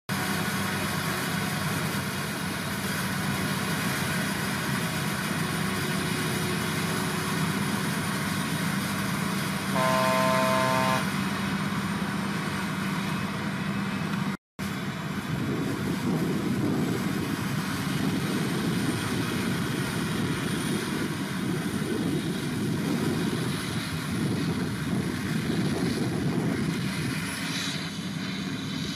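Heavy farm machinery engines running steadily, with a vehicle horn sounding once for about a second around ten seconds in. After a momentary dropout about halfway, a rougher, noisier engine rumble continues.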